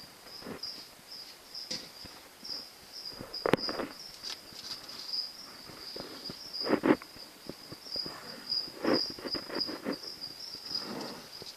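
A cricket keeps up a steady high trill, over a few scattered scrapes and rustles from a savannah monitor lizard crawling over dry soil and wood.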